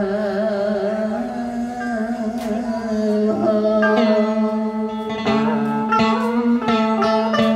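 Southern Vietnamese đờn ca tài tử instrumental accompaniment: plucked strings playing bent, wavering notes over a held low note, with struck plucked notes coming thicker in the second half.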